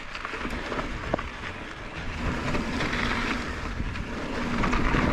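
Mountain bike rolling down a steep, rutted dirt trail: tyre and rushing-air noise building as it picks up speed, with a steady low hum from the bike setting in about two seconds in.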